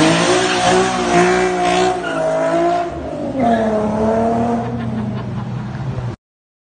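Infiniti coupe pulling away hard, its engine revving up and down with tires squealing; the sound cuts off abruptly about six seconds in.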